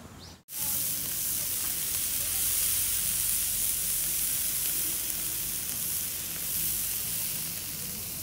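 Beef, shrimp and mushrooms sizzling on a round tabletop barbecue grill plate: a steady hiss that starts abruptly about half a second in and eases off near the end.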